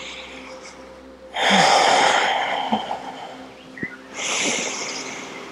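A woman breathing deeply and audibly while holding a yoga side stretch: two long, loud breaths, the first about a second in and the second near the end, picked up close on a clip-on microphone.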